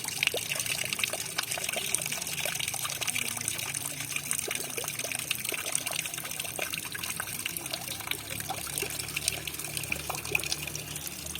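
Water trickling and splashing steadily, a continuous hiss with many small droplet splashes.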